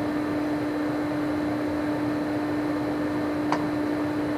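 Steady mechanical hum with a constant low tone over a hiss, and one short click about three and a half seconds in.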